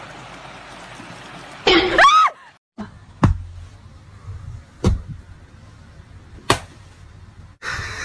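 A short loud cry with a sliding pitch about two seconds in, over a steady hiss. Later, three sharp slaps of a hand on a blanket, about a second and a half apart.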